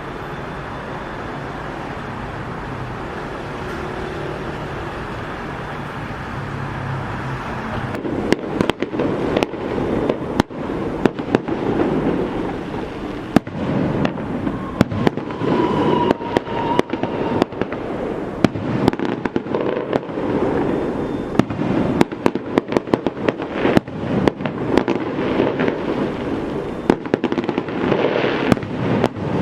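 Steady street noise, then about eight seconds in a long run of firecrackers begins: dense, irregular sharp bangs that keep going.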